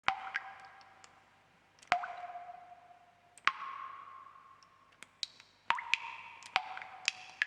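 Water drops falling into water one at a time, each a sharp plop followed by a short ringing tone that dies away, the pitch differing from drop to drop. The drops come about every second and a half at first, then faster, several in the last two seconds.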